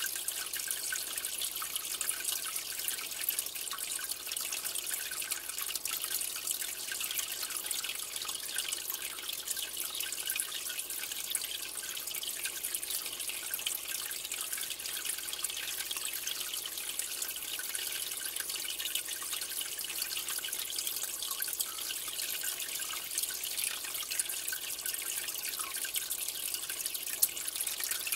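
Aquarium filter outflow splashing and trickling steadily into the tank's water surface, a continuous bright watery patter.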